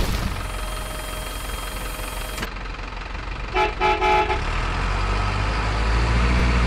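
Miniature RC dump truck tooting its horn in two or three short blasts, then a low steady engine drone as it drives off. Before the horn there is a steady mechanical whir while the tipper bed is down.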